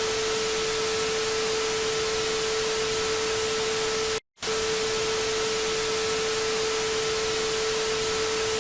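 Loud, even static hiss with a steady mid-pitched tone running through it, like a TV off the air. It cuts out for a split second about four seconds in, then resumes unchanged.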